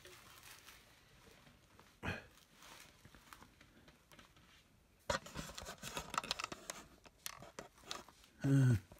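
Handling noise as an adult sits down on a small white wooden kids' porch rocker. A single knock comes about two seconds in, then rustling and clicking for about three seconds as he settles onto it. A short vocal sound follows near the end.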